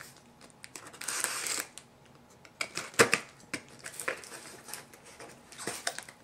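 A box cutter's blade drawn through the tape on a cardboard mailer box makes a short scratchy rasp about a second in. Sharp clicks and taps follow, the loudest a few seconds in, as the cardboard box is handled and its flap pulled open.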